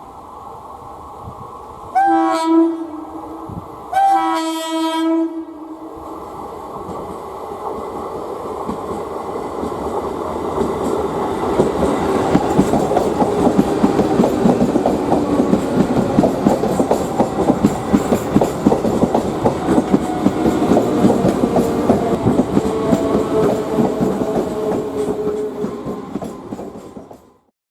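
An Indian Railways locomotive sounds two short horn blasts, then a train passes close by with loud wheel clatter over the rail joints. The clatter builds up and stays loud before cutting off suddenly near the end.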